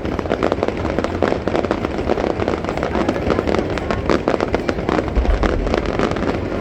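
Fireworks going off in quick succession: a dense run of crackling bangs, with a heavier low boom about five seconds in.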